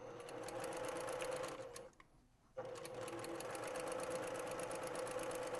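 Sewing machine stitching a patchwork seam, a steady motor hum with rapid needle strokes. It stops for under a second about two seconds in, then runs on at the same speed.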